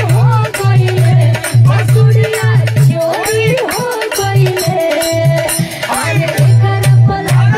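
A woman sings a traditional Bhojpuri folk song into a microphone, her voice holding and bending long notes, with hand-clapping in rhythm under it.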